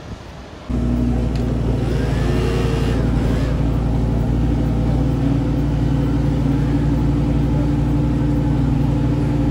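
Lamborghini engine running at a steady idle, loud and low-pitched. It cuts in suddenly just under a second in and holds an even pitch without revving.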